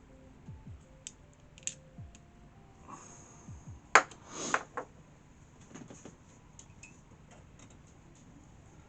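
Small clicks and taps of a tool working at the tiny metal bracket inside an opened Apple Watch. About four seconds in comes one sharp click, followed by a short scrape.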